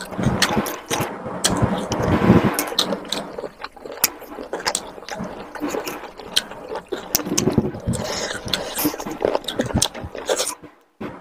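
Close-miked chewing and wet mouth noises with many sharp, irregular clicks as a person eats spicy chicken curry and rice. The sound cuts out briefly near the end.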